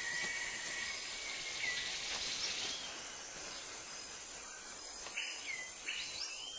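Rainforest ambience: a steady high hum of insects with a few short whistled bird calls, each a quick glide in pitch.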